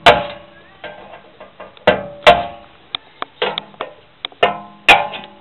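A string of sharp metal knocks on a sheet-steel electrical meter box, about a dozen at uneven spacing, each leaving a short metallic ring.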